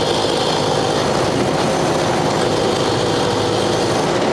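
1929 Ford Model AA truck's four-cylinder side-valve engine pulling steadily in fourth gear, heard from inside the cab with the drivetrain and road noise of the truck under way.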